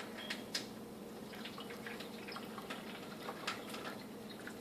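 Water being poured off a bowl of cooked ramen noodles into a kitchen sink: a scatter of small drips and splashes. A faint steady hum runs underneath.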